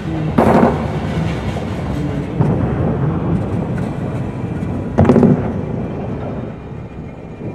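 Railway wagons rolling and rattling along the track in a steady rumble. Two short louder bursts come through, one just after the start and one about five seconds in.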